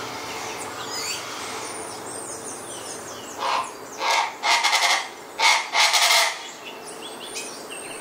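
Colombian chachalaca (Ortalis columbiana) calling: a run of about five loud, harsh, rasping calls over some three seconds, starting about three and a half seconds in. Small birds twitter faintly behind it.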